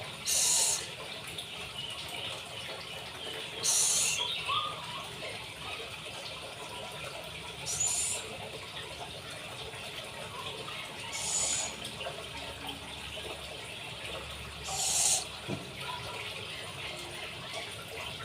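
Scops owl hissing in five short bursts, one about every three to four seconds, over a steady background hiss.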